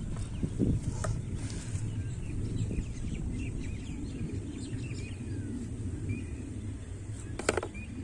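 Outdoor pond-side ambience: small birds chirping over a steady low rumble. About seven and a half seconds in comes a sharp plastic knock as the red bucket's lid is taken off and set down.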